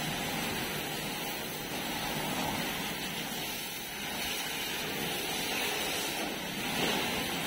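High-pressure water jet from a pressure-washer wand spraying against the metal arm and body of a JCB backhoe loader: a steady hiss and splatter.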